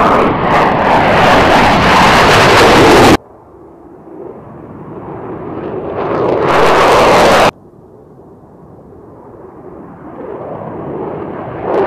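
Fighter jet engines at takeoff power, first an F-15E Strike Eagle's twin engines, then F-16 takeoffs. Each jet's noise grows louder as it passes close, then is cut off suddenly, once about three seconds in and again a little past the middle.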